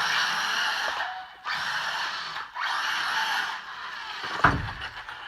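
Arrma Senton 6S RC truck's brushless motor and drivetrain running in three short throttle bursts, about a second each, with a loud thump about four and a half seconds in.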